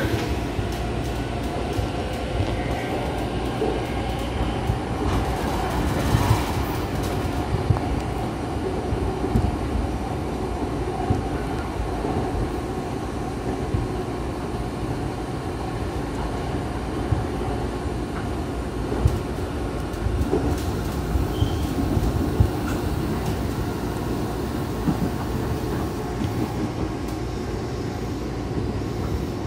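Meitetsu 5000 series electric train running at steady speed, heard from aboard the car: an even rumble of wheels and running gear, with occasional short clacks.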